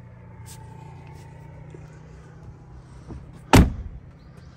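A steady low hum, then one loud thump about three and a half seconds in.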